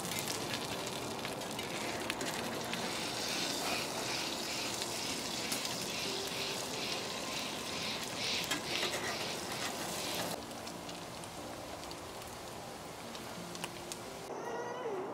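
Dumplings and egg sizzling as they fry in a stainless steel pan over a gas burner, with a spatula scraping and turning them in repeated strokes. The sizzle drops quieter about ten seconds in.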